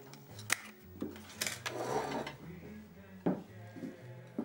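Kitchen clatter of dishes and cutlery being handled at a counter: several separate clinks and knocks.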